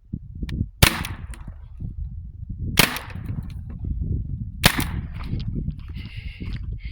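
TR50 CO2-powered .50 caliber pistol firing three sharp shots about two seconds apart.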